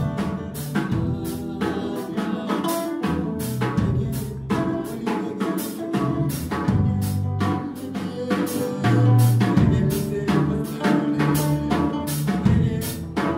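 Live band playing: a drum kit keeps a steady beat under electric guitar and bass.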